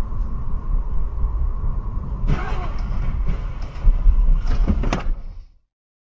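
A car driving, with low road and engine rumble picked up by a dashcam inside it. From about two seconds in come loud noisy crashes and bangs from a car crashing off the road ahead, with sharp impacts near the end before the sound cuts off suddenly.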